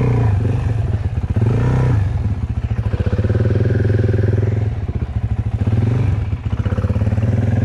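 Motorcycle engine running at low revs with a steady pulsing beat, the revs rising and falling briefly about a second and a half in.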